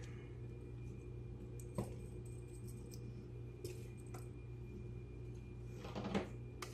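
A few short clicks and clinks of cables and connectors being handled and plugged into a desktop PC, over a steady low electrical hum.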